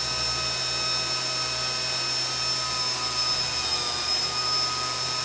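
3D-printed PLA 120 mm fan blade spun by a brushless racing-drone motor near its top speed of about 7,600 RPM. It makes a steady high whine with several fixed tones over a rush of moving air.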